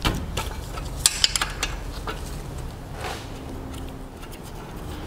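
Irregular metallic clinks and clicks of a hand wrench working at the drain plug cover on an outboard motor's lower leg, with a quick cluster of sharp clicks about a second in.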